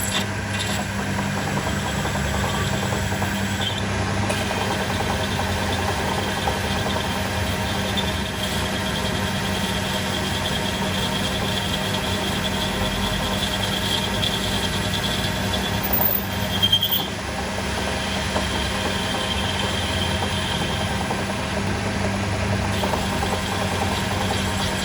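A workshop machine running steadily, with a constant hum and a high squealing whine over it. A short louder scrape about two thirds of the way through.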